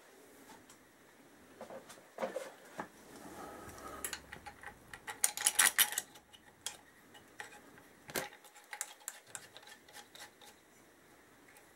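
Small metal parts clinking and rattling as a metal cam holder is fitted by hand over the camshaft caps of a Honda XL1000 Varadero V-twin's cylinder head. There is a quick run of sharper clinks about five to six seconds in and a single clink a little after eight seconds.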